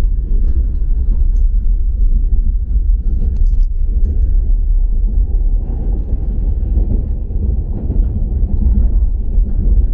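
Steady low rumble of a moving passenger train, heard from inside the carriage.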